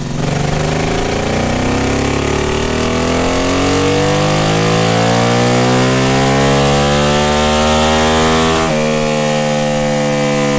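Brough Superior SS100's air-cooled V-twin engine running, its revs climbing slowly and steadily. Near the end the sound changes abruptly to a steadier note with less low rumble.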